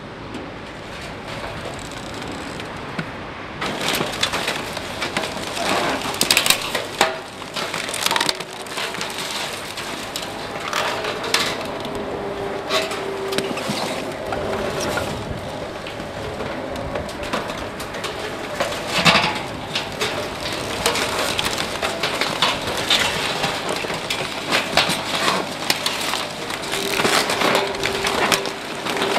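Spiked compaction drum of a Bergmann RPM 7700 Roll-Packer crushing and splintering mixed waste such as wooden boards in an open container. Irregular cracking and snapping starts about three and a half seconds in and goes on over the machine's steady running.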